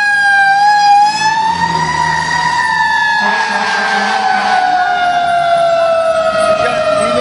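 Fire truck siren wailing, its pitch rising briefly about a second in and then gliding slowly down. A rush of noise joins about three seconds in, with a low engine hum beneath.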